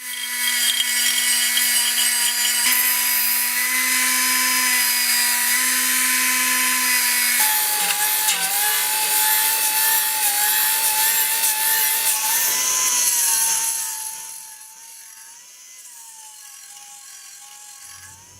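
Nitto Kohki Belton-CL pneumatic belt sander running: the air motor gives a high, steady whine over a loud hiss, with the belt rubbing and grinding on a workpiece. The whine drops slightly in pitch about seven seconds in, and the sound becomes much quieter about fourteen seconds in.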